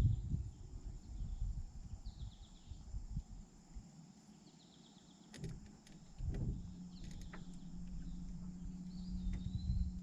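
A songbird repeats a short slurred phrase every few seconds over a low outdoor rumble. A few sharp clicks come around the middle, and a steady low hum sets in about six seconds in.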